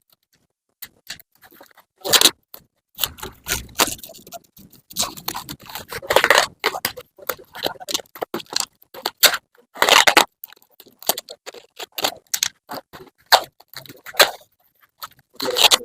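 An uneven run of short scrapes and clinks from objects being handled, with no steady rhythm.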